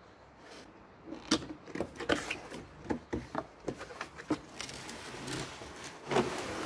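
Cardboard box being opened by hand: flaps pulled open with irregular rustling and scraping, and sharp clicks and knocks as the packed hedge trimmer shifts inside, with a longer scrape near the end.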